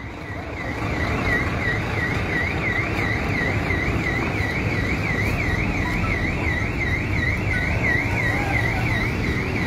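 An electronic alarm warbling: a high tone rising and falling about three times a second, over a constant rushing background noise.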